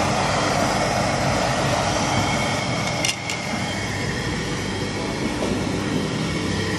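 Steady rushing din of a barbecue restaurant, with a brief break about three seconds in.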